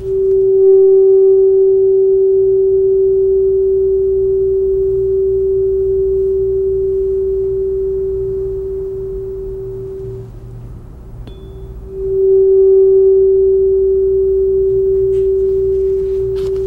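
Tuning fork tuned to the note G, the throat-chakra fork of a chakra set, struck and ringing as one steady pure tone that slowly fades. It is struck again about twelve seconds in and rings on.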